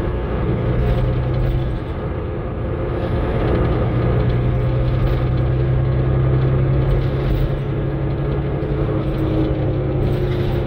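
Interior of a Mercedes-Benz Citaro diesel bus under way: a steady low drone from the engine and drivetrain with a few held tones above it, plus light rattling from the body and fittings.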